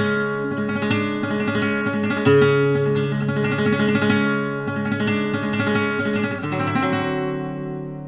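Acoustic guitar music in flamenco style: strummed chords, with a chord left ringing and fading near the end.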